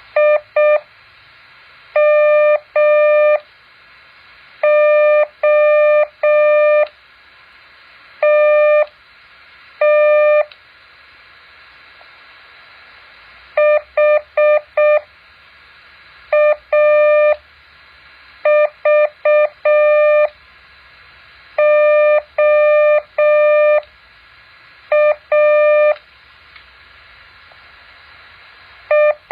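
Morse code practice tone near 600 Hz keyed in short dits and longer dahs, sent as separate characters with pauses of a second or two between them, over a faint steady hiss.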